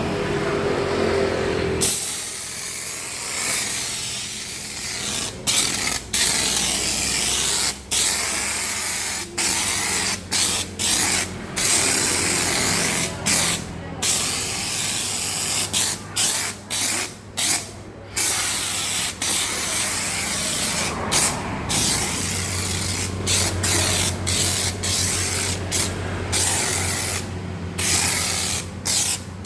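Electric snow-foam sprayer with a DC pump spraying foam: a hiss that starts about two seconds in and keeps stopping for split seconds as the trigger is let go and squeezed again, over the steady low hum of the pump.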